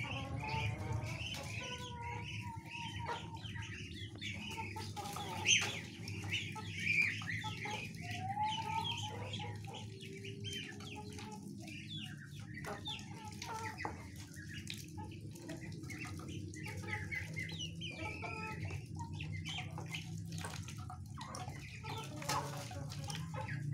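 Free-range chickens clucking while they and Muscovy ducks feed together, with many short clicks and taps of beaks at the feed bowl and a sharper sound about five and a half seconds in.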